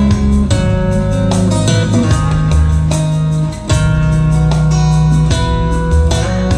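Music with plucked guitar notes over heavy, deep bass, with a short drop in loudness about three and a half seconds in.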